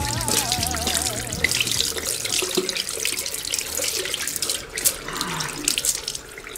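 Water running and splashing, like a tap running into a sink. A warbling tone fades out about a second in.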